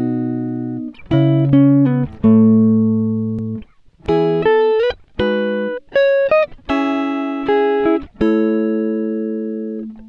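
Background music on a plucked guitar with a clean tone: strummed chords and short melodic phrases, each note fading after it is struck, with a brief pause a little before halfway.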